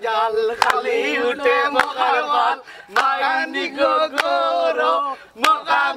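Several men singing a chant together, with a sharp hand clap about every second and a quarter.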